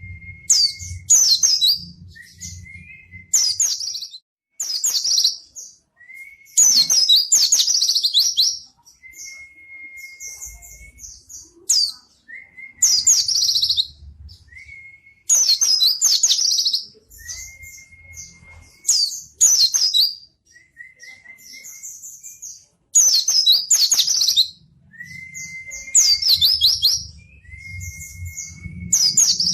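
White-eye (pleci) singing in bursts of rapid, high twittering, each about a second long and repeated every second or two. Between the bursts come thin, level whistled notes lower in pitch.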